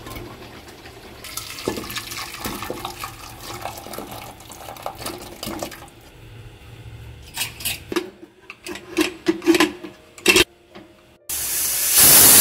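A ladle scoops thick chicken curry and tips it into a pressure cooker, with wet splats and a run of metal clinks against the pot. Near the end the closed pressure cooker suddenly starts a loud, steady hiss of escaping steam as it whistles.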